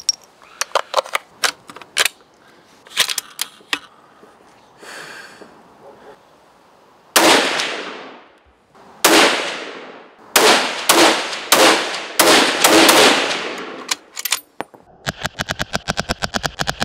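Brass .308 cartridges clicking as they are handled. Then about seven loud shots from a .308 bolt-action precision rifle, each trailing off. Near the end comes a fast, even rattle of clicks.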